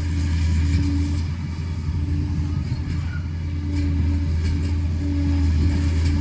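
Heavy diesel engine of a Liebherr PR 746 crawler dozer running steadily, a deep, even drone with a recurring higher hum.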